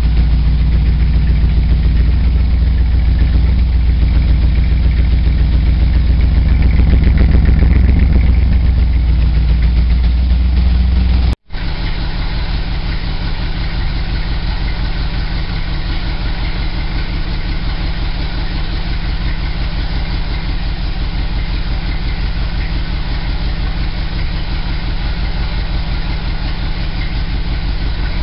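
Go-kart engine idling steadily just after a cold start at about 15 °F. It breaks off for an instant about eleven seconds in and comes back with less low rumble.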